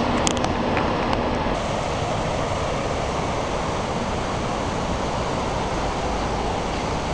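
Horseshoe Falls at Niagara: heavy falling water rushing steadily as an even, deep noise, with a few faint clicks in the first second or so.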